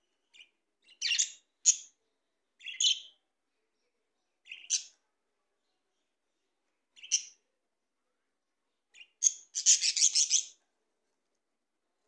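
Budgerigars chirping: short, high chirps a second or two apart, then a run of rapid chattering chirps lasting about a second near the end.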